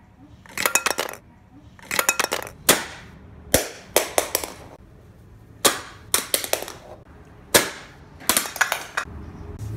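Sharp plastic clicks and snaps in quick clusters of several, about eight groups: the pegs of a Playskool Pop-up Pals toy being pressed and springing up, with toy figures knocking against them.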